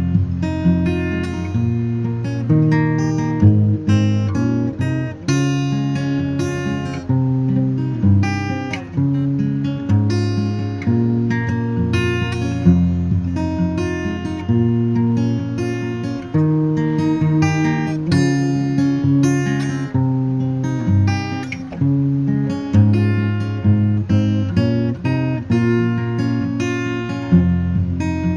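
Background music: acoustic guitar, plucked and strummed, with the chords changing every second or so.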